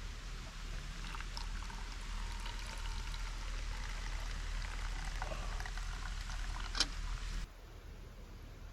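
River water running, a steady rushing noise with one sharp click near the end. The sound cuts off abruptly about seven and a half seconds in and gives way to quieter ambience.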